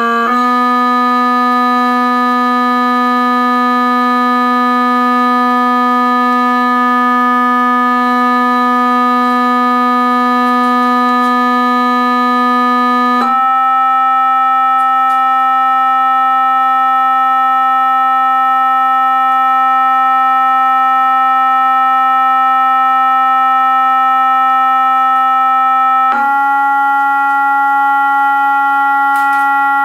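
Steady electronic test tone from a cymatics setup, a buzzy, overtone-rich hum driving the sand-pattern vibration. It holds each pitch for about thirteen seconds, stepping up a little three times: just after the start, about a third of the way through and about two thirds through.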